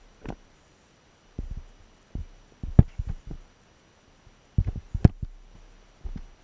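Irregular dull knocks and thumps on an underwater camera housing resting on a gravel riverbed, coming in small clusters, the loudest about three seconds in and again about five seconds in.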